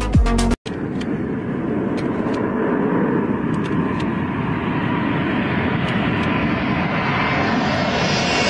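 Electronic dance music with a beat that cuts off about half a second in, then the jet noise of an F-14 Tomcat flying low toward the microphone: a steady rush that grows louder and higher toward the end.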